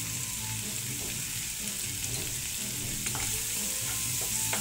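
Chopped vegetables sizzling in a nonstick frying pan while a wooden spatula stirs them, with a few light knocks of the spatula against the pan in the second half.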